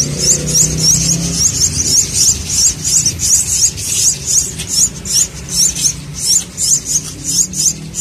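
Javan myna (jalak kebo) nestlings begging for food, a steady run of short, rising, high-pitched cheeps about three a second.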